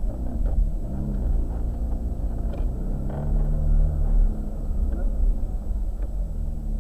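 Ferrari F430 Spider's 4.3-litre V8 running as the car is driven at low speed with the top down: a low rumble whose pitch rises and falls with the throttle, loudest about three to four seconds in.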